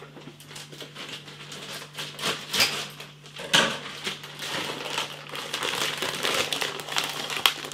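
Plastic bag of frozen fries being handled, crinkling in irregular crackles.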